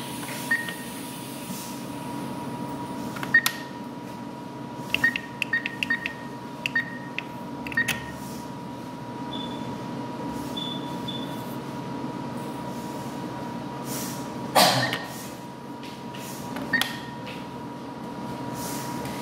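ATM keypad beeping as keys are pressed: a run of short high beeps, each with a small click, from about three to eight seconds in, then a couple of higher-pitched beeps around ten seconds. A louder knock about three-quarters of the way through, all over a steady room hum with a faint constant tone.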